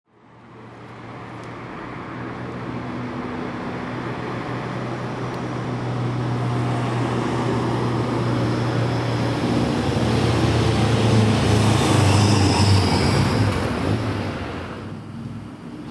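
Road traffic: a motor vehicle's engine hum and tyre noise grows steadily louder, peaks as it passes close about twelve seconds in, and falls away sharply near the end.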